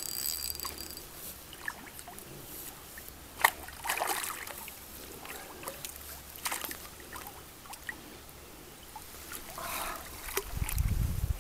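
Hooked carp splashing and swirling at the water surface as it is played on the line, in short irregular splashes; the loudest is a sharp one about three and a half seconds in. A low rumble joins near the end.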